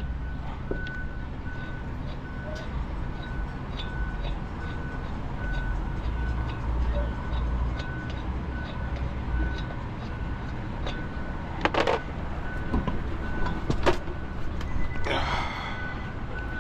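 Steady low rumble of vehicles at the roadside, with a high electronic beep repeating about twice a second. A couple of sharp clanks sound near the end.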